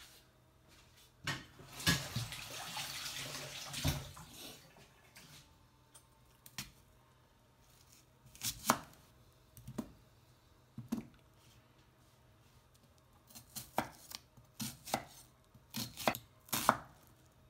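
Santoku knife dicing an onion on a cutting board: sharp single chops spaced out at first, then a quicker run of chops near the end. A short hissing rush lasts about two seconds near the start.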